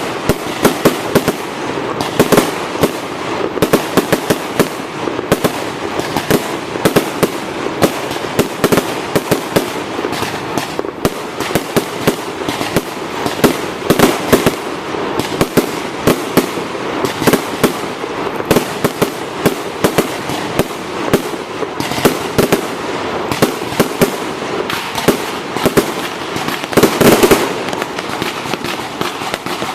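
Fireworks display: a continuous barrage of bangs and crackles, several reports a second, over a steady rumble.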